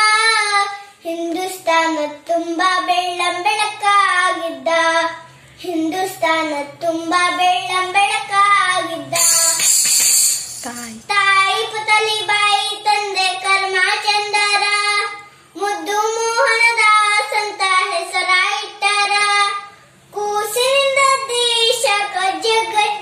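A young boy singing a song solo, in phrases of held notes with short pauses between them, with no instrument heard. A short hiss comes about nine seconds in.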